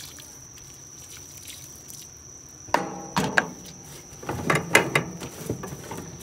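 Water poured from a plastic jug onto the ashes in a fire pit, a faint steady pour, then a hand slapping and stirring the wet ash, with a series of sharp knocks and scrapes from about three seconds in.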